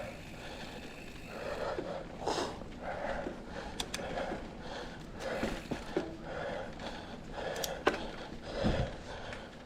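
A mountain biker's heavy, rhythmic breathing while riding, a little more than one breath a second, with a few sharp clicks and a low thump near the end.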